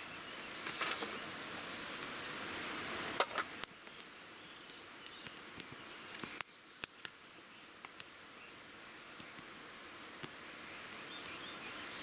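Wood fire in a small box stove crackling, with sharp irregular pops over a steady hiss of flames. A few louder knocks come in the first few seconds.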